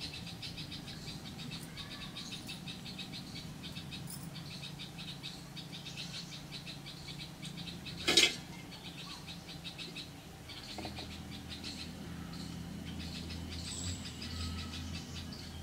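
Fast, high-pitched pulsed chirping from small animals, with a low steady hum beneath and one sharp click about eight seconds in.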